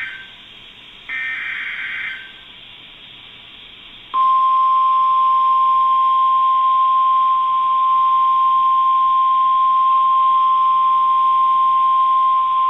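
Emergency alert broadcast over NOAA Weather Radio for a tornado warning: a one-second burst of SAME digital header data about a second in, then hiss, then the steady single-pitch 1050 Hz weather radio warning alarm tone starting about four seconds in and holding for about nine seconds.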